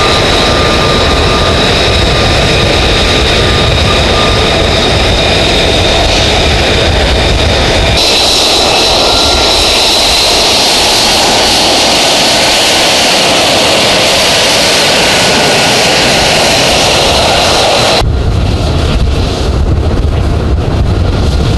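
F-35A fighter's jet engine running loud and steady, a deep rumble under a rushing noise with a thin high whine. Its character changes abruptly twice: about a third of the way in the deep rumble falls away and a brighter rushing noise takes over, and a few seconds before the end the deep rumble returns.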